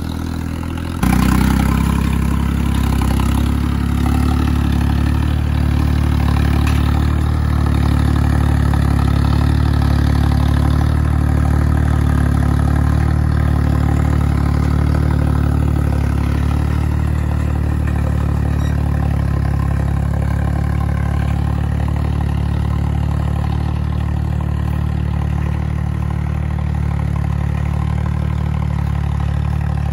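Farmtrac 60 tractor's three-cylinder diesel engine running steadily under load as it pulls a tine cultivator through dry soil. It gets louder about a second in.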